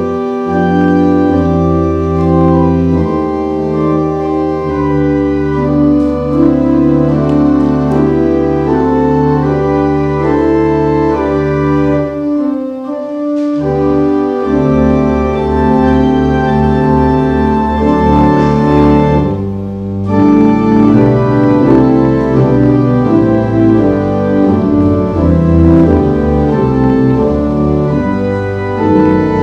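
Church organ playing sustained chords over long-held bass notes. About halfway through the low notes briefly drop out, and after that the bass line moves more.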